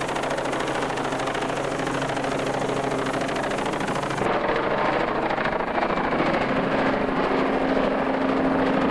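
Helicopter running overhead, a steady rotor and engine drone. A little over four seconds in, the sound changes abruptly, becoming slightly louder and duller.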